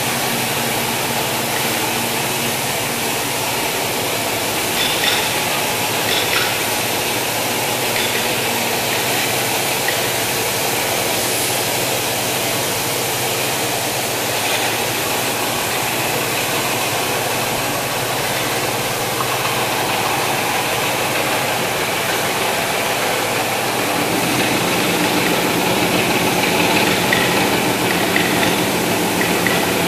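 Steady drone of woodworking machinery running in a furniture workshop, with a few knocks about five seconds in. About three-quarters of the way through a different machine hum comes in and the sound gets a little louder.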